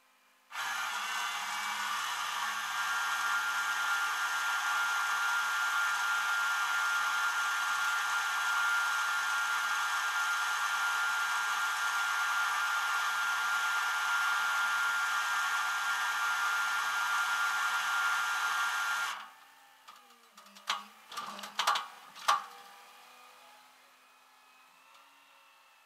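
Rollback tow truck's hydraulics running with a steady high whine as the flatbed moves, starting and cutting off abruptly. A few clanks follow shortly after it stops.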